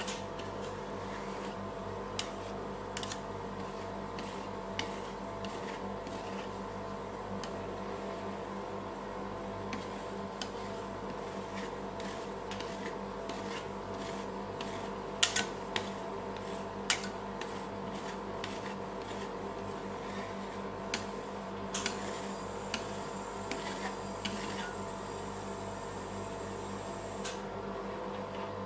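Metal spatulas scraping and tapping on the frozen steel plate of a rolled ice cream machine as a thin layer of avocado ice cream is spread and scored, with scattered sharp clicks, the loudest a cluster about halfway through. Under it runs the steady hum of the cold plate's refrigeration unit.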